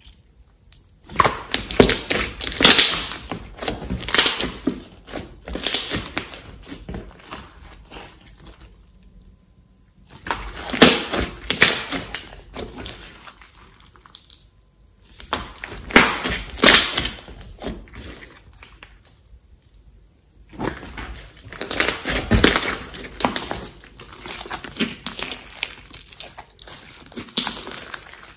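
Thick teal slime being stretched, folded and squeezed by hand, giving off dense crackling and popping as air pockets in it burst. It comes in four rounds with quieter pauses between them.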